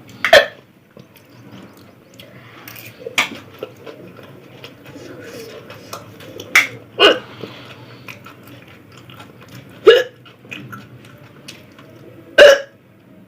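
A person hiccuping six times, each one a short, sharp vocal gulp. The hiccups come roughly every three seconds, with two close together about halfway through.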